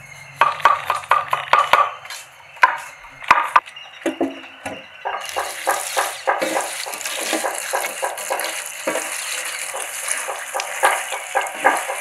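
Fresh herb leaves rustling and crackling as hands sort and pluck them from a heap. Scattered clicks and taps come first, and a continuous dense rustle sets in about five seconds in.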